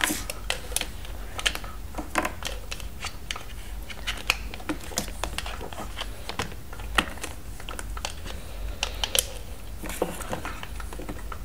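Hard plastic Mrs. Potato Head parts clicking and tapping as they are pulled out of and pushed into the holes of the plastic potato body: irregular sharp clicks, a sharp one about seven seconds in.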